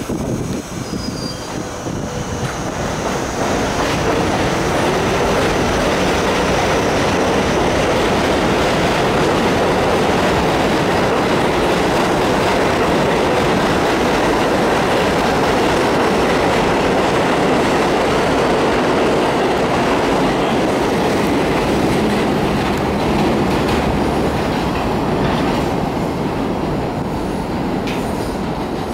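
R62A subway train pulling out of the station and running past, with steel wheels on rail. The sound builds over the first few seconds as it gathers speed, stays loud while the cars go by, and drops away near the end as the last car passes.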